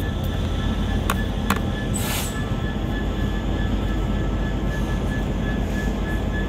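Class 66 diesel-electric freight locomotive passing slowly, its two-stroke V12 engine giving a steady low rumble. A thin, steady high squeal from the wheels sits over it, and there are a couple of sharp clicks about a second in.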